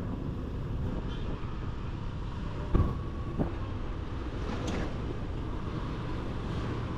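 Motorcycle under way in traffic: steady engine and road rumble, with a short knock about three seconds in.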